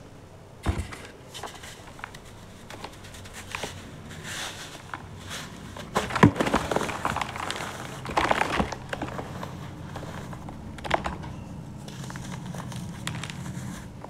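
Dry sand-cement lumps crumbling and crunching between bare fingers, a steady gritty crackle. Sharper crunches come about a second in, around six and eight seconds, and again near eleven seconds.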